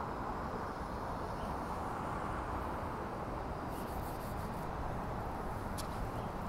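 Steady street traffic noise, with a city transit bus approaching among passing cars. A single sharp click comes near the end.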